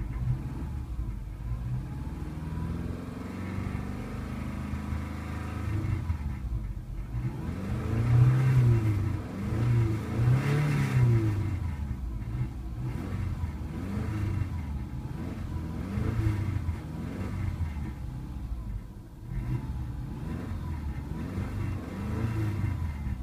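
2001 Subaru Legacy Outback's 2.5-litre flat-four boxer engine revved repeatedly in park, rising and falling in pitch several times between idle and about 2,000–3,000 rpm. It is loudest about eight to eleven seconds in. It is a high-mileage engine with 215,210 miles on it.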